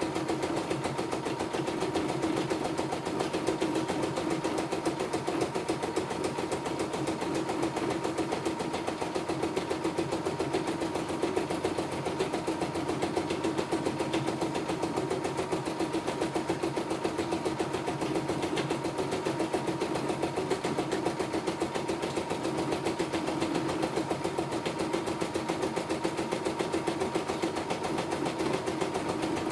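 CNY E960 computerized embroidery machine stitching steadily at speed, a fast even needle rhythm. It is running a test pattern after its bobbin case was replaced, and it runs smoothly with no trouble.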